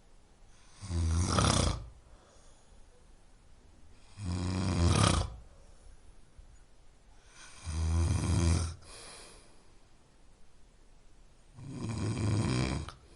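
A person snoring: four snores, each about a second long, coming roughly every three and a half seconds with quieter pauses between them.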